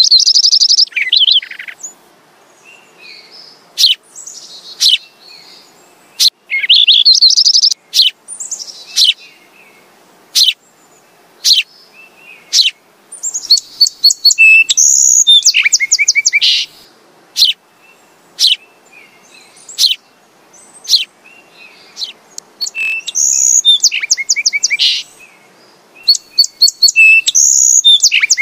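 Sparrows chirping: bursts of fast, high chirp trills about every few seconds, with single sharp chirps between them.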